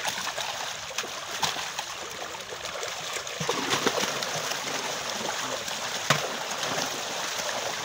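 Many fish thrashing at the surface inside a pulled-in seine net, a constant busy splashing and churning of water, with one louder smack about six seconds in.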